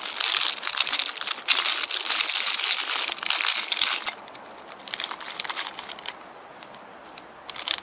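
Thin plastic wrapper of a packaged pastry crinkling loudly as it is opened by hand. About four seconds in it drops to faint scattered rustles.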